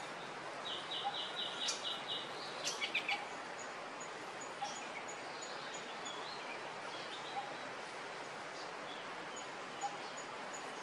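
Steady outdoor background hiss with a bird calling. About a second in comes a quick run of about eight evenly spaced high notes, then a few sharp chirps near three seconds in, and only scattered faint chirps after that.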